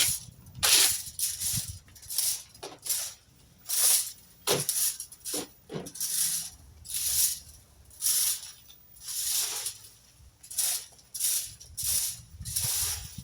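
A rake scraping and dragging through tree-trimming debris on the ground in repeated short strokes, about one a second, with uneven rests between them.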